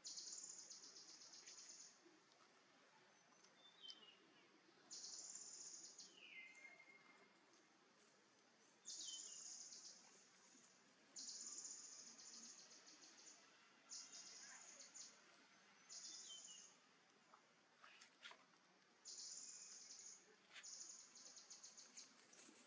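Faint forest ambience: a high, buzzy trill lasting about a second, repeated about eight times at uneven gaps of a few seconds, with a few short falling chirps between.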